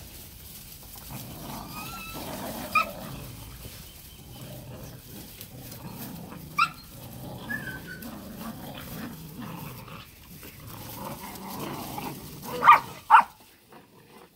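Puppies play-fighting over a toy, growling low throughout with short high yelps about three seconds in and again past the middle, and two loud yelps in quick succession near the end.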